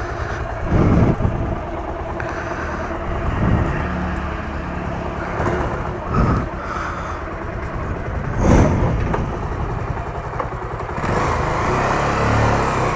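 Motorcycle engine running steadily with a low, pulsing rumble, a few short clattering knocks, and a louder surge of engine noise near the end.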